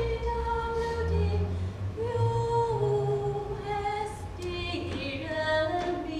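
Background music: a woman's voice singing slow, long-held notes that step from pitch to pitch, with low tones underneath.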